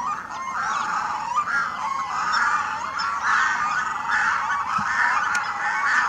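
Several red-throated divers (red-throated loons) calling together in a long run of repeated calls, about two a second, as a group rushes across the water in display.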